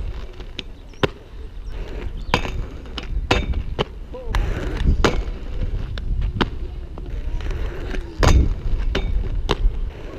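Inline skates rolling on concrete, with repeated sharp clacks and scrapes as the skates hit, grind and land off a metal rail, over a steady low rumble.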